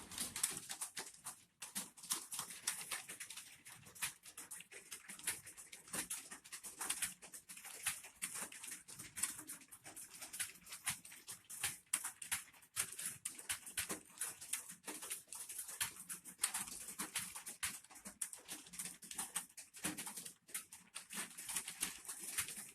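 Computer keyboard being typed on fast: a quick, irregular run of key clicks, several a second, with no break.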